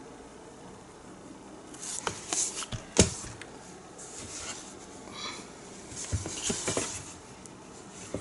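Handling noises of a painting canvas being moved and lifted: rustling with scattered clicks and taps, the sharpest a single knock about three seconds in, after a quiet start.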